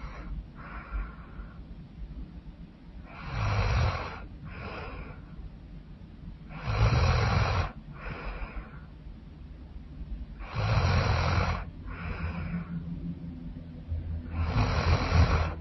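A woman snoring loudly and rhythmically. There are four loud snores with a low rattle, about every three and a half seconds, each followed by a shorter, softer breath.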